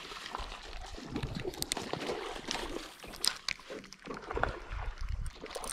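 Water splashing and sloshing in irregular bursts, with scattered sharp clicks and knocks.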